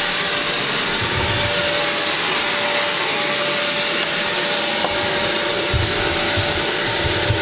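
Vacuum cleaner running steadily while cleaning out an SUV's interior: a loud, even rushing hiss with one constant whine over it and a few dull low bumps.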